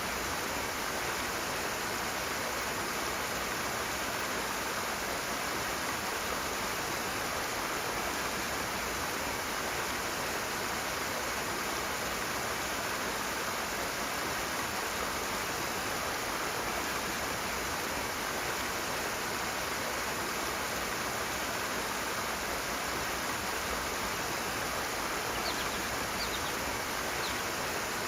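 Rushing water, a steady, even rush with no change in level.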